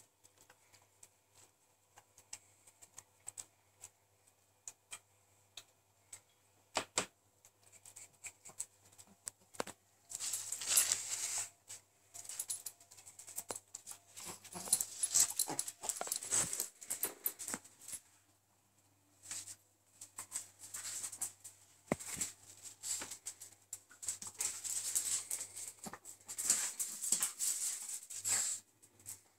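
A Kerry blue terrier and a chihuahua play-fighting on a tiled floor: scuffling, with claws clicking and scrabbling on the tiles. It starts as scattered clicks, then comes in two long bouts of busy scratching and scuffling, the first about ten seconds in and the second a couple of seconds after it ends.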